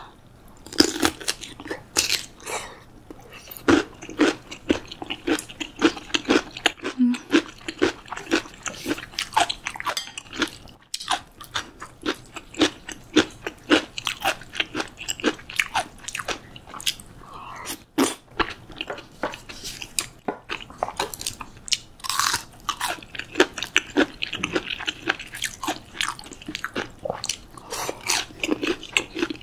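Close-miked crunching and chewing of chonggak (ponytail radish) kimchi: crisp bites one after another. Wetter chewing of a spoonful of curry rice joins later.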